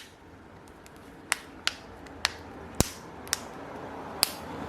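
About six sharp plastic clicks and taps at irregular intervals as a Xiaomi Poco F1 smartphone is being closed back up by hand.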